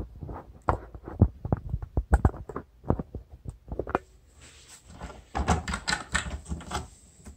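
Irregular clicking and tapping of hands handling small plastic parts: a plastic cable gland nut being threaded on at a plastic waterproof box. The clicks come thicker in the last few seconds.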